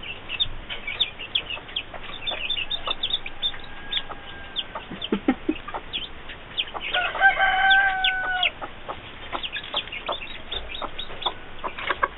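Chickens in a coop: newly hatched chicks peeping in short, high, rapid notes while the mother hen clucks to them. A little past halfway, a rooster gives one held crow, the loudest sound.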